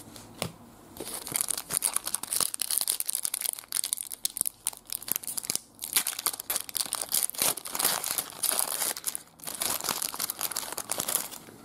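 A foil trading card pack being torn open and its wrapper crinkled as the cards are pulled out: a crackly rustle in irregular bursts with a few short pauses.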